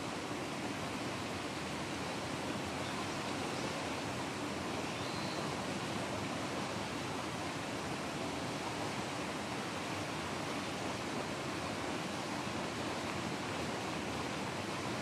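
Steady rushing noise, even throughout, with no distinct events.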